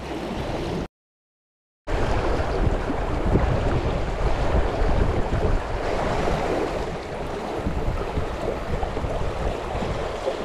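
Shallow river rapids rushing over stones around a small boat, with wind rumbling on the microphone. The sound cuts out for about a second near the start.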